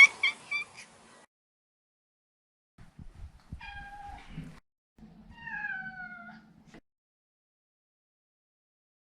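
Maine Coon cat meowing: a quick run of short high calls at the very start, then, after a silent gap, two separate meows about three and a half and five seconds in, the second sliding down in pitch.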